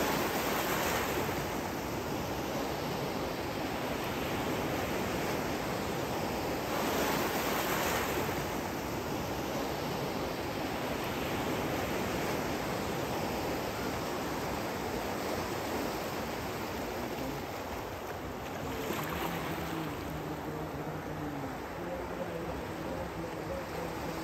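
Sea surf breaking and washing into the shallows: a steady rush of waves that swells louder around seven seconds in.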